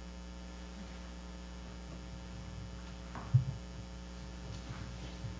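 Steady electrical mains hum, with a single low thump about three seconds in and a few faint soft knocks near the end.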